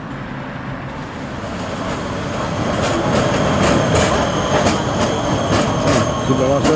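A Prague Škoda 14T low-floor tram passing close by, its wheels clicking sharply and repeatedly over the rail joints, with the sound growing louder as it nears. A falling electric whine sounds near the end.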